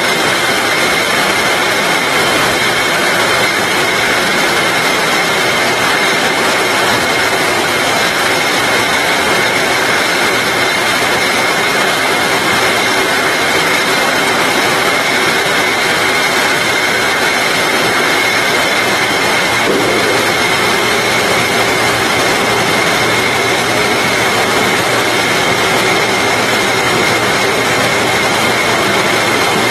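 Rotary bottle labeling machine running at production speed on a bottling line: a loud, steady mechanical din with a constant high whine. A low hum joins about two-thirds of the way through.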